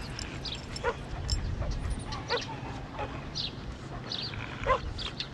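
Dogs yipping and whining in a string of short, high calls, several of them sliding in pitch, as two leashed dogs meet and greet.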